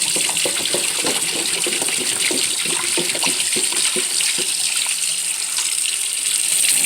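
Kitchen tap running hot water at a steady full flow, splashing as it fills a container for cleaning water. It stops suddenly just after the end.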